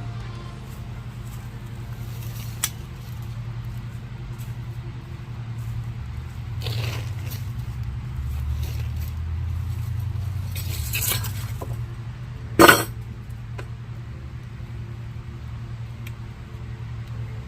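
The pop-up greenhouse's metal frame being handled as a telescoping leg is released and extended: light clinks and sliding, with one loud sharp click about thirteen seconds in, over a steady low hum.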